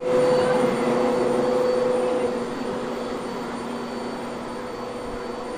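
Vacuum cleaner running, a steady motor hum and rush of air that gets somewhat quieter about two seconds in.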